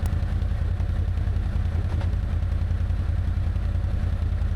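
Can-Am Outlander ATV's V-twin engine idling with an even, fast low pulse.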